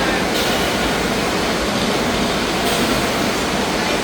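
Loud, steady rushing noise with a strong low rumble, unbroken throughout.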